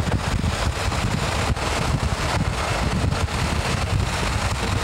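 Wind buffeting the microphone with road noise from a moving vehicle: a steady, gusty low rumble with a hiss over it.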